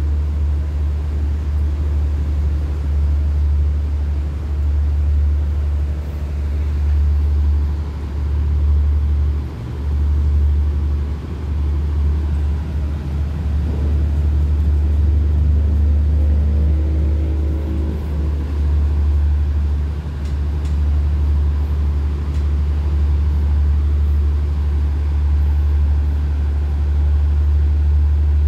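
Steady low rumble of a standing diesel passenger train idling at the platform, with a fainter engine note that rises and falls about halfway through.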